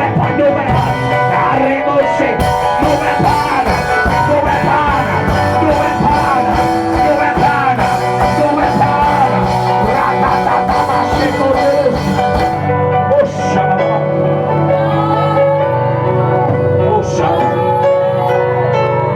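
Worship band music with a steady beat; the drums drop out about two-thirds of the way through, leaving held chords.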